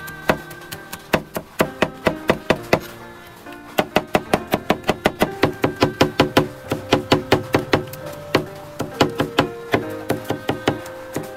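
Knife chopping garlic cloves on a wooden cutting board: quick, even knocks of the blade on the wood, about three or four a second, with a short pause about three seconds in. Background music plays underneath.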